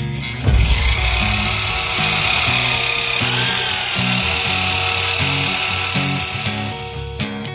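Electric drill boring a hole through a steel knife blank cut from an old saw blade: a steady high whine and cutting hiss that starts about half a second in and stops near the end, its pitch dipping briefly midway. Guitar music plays underneath.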